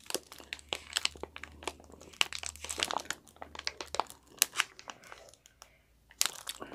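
Packaging being crumpled by hand: irregular crinkling crackles with a short pause near the end.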